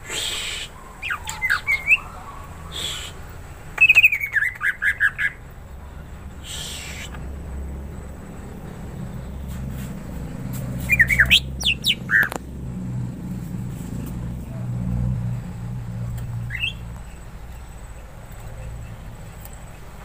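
Green leafbird (cucak hijau) calling in short bursts of chirps and whistles, with a quick run of about six falling notes about four seconds in and another cluster of chirps around the middle. A few brief rustles and a low rumble lie underneath.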